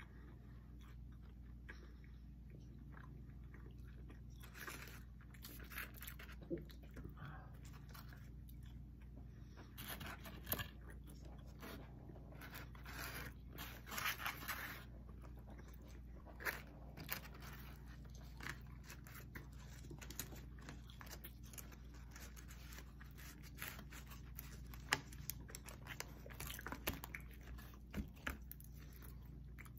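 Two people chewing and biting pizza, quiet mouth sounds broken by scattered small clicks and knocks, over a low steady hum.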